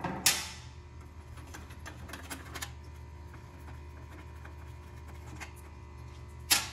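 Scattered light clicks and taps of bolts being turned by hand and handled on a snow blower's engine shroud, with a sharper click about a quarter second in and another near the end, over a steady low hum.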